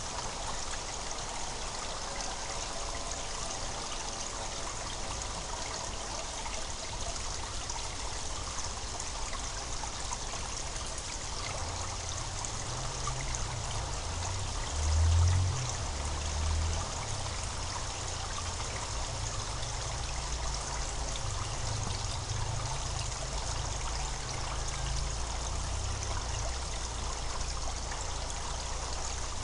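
Spring water gurgling and trickling steadily, with a brief low rumble about halfway through.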